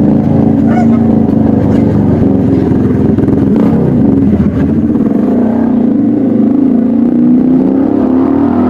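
Motorcycle engine running through an aftermarket exhaust, with the revs held fairly steady. The pitch dips briefly a few seconds in and climbs gently again near the end.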